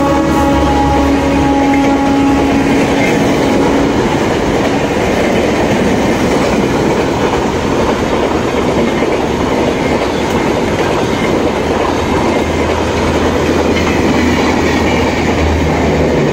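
Humsafar Express coaches rushing past at speed on a non-stop run through a station: a loud, steady rush of wheels on rails. The WAP-7 electric locomotive's horn, already moving away, sounds through the first four seconds or so and then fades out.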